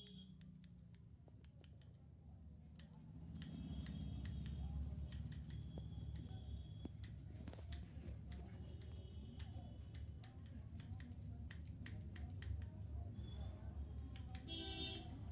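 Barber's scissors snipping through beard hair over a comb, in quick runs of crisp cuts that get busier about three seconds in, over a low steady hum.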